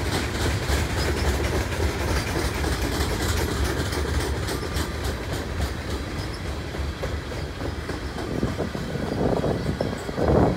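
Freight cars rolling past on the rails: a steady rumble of steel wheels with a regular clicking as the wheels cross rail joints, the clicks thinning out in the second half.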